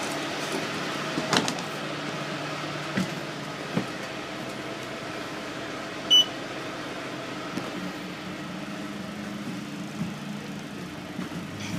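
Steady hum inside a bus standing with its engine idling, with a few knocks and one short electronic beep about six seconds in.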